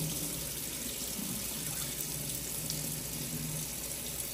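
Pull-down kitchen faucet running steadily into a stainless steel sink, the stream splashing over pieces of fish being rinsed by hand in a bowl held under it.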